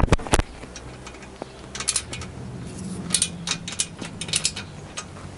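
Ratchet wrench clicking in short runs as an engine mounting bolt is worked loose, after a few sharp metallic knocks at the start.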